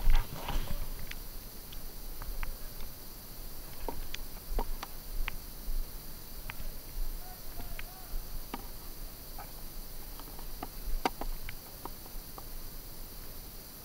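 Scattered sharp pops of paintball markers firing around the field, irregularly spaced, with a louder clatter at the very start and a louder pop about eleven seconds in.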